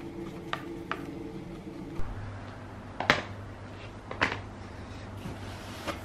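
A few light clicks and taps from handling the plastic hair-dye bottles and brush applicator, over a steady low hum that shifts lower about two seconds in.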